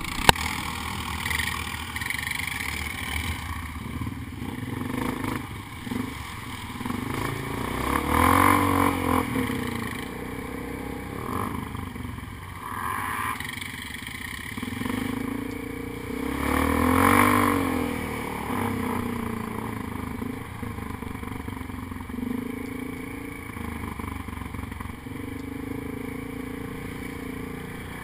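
Quad ATV engine running under way, swelling in pitch and loudness as it revs about eight seconds in and again around seventeen seconds.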